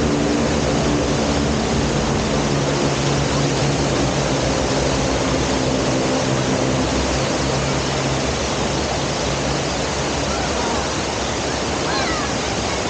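Steady rushing water of a waterfall, with a low steady hum under it that fades out about ten seconds in.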